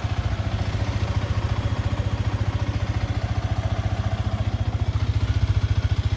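A 2017 Yamaha R15's single-cylinder engine idling steadily with an even exhaust beat, just after being started by the alarm's remote start.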